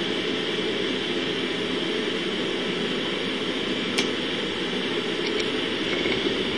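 Steady mechanical hum and hiss of background machinery, with one sharp click about four seconds in.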